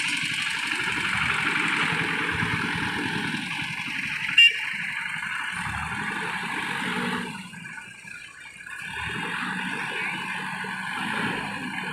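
Engine of a crane or similar heavy machine running, dipping in level about halfway through, with one sharp click about four seconds in.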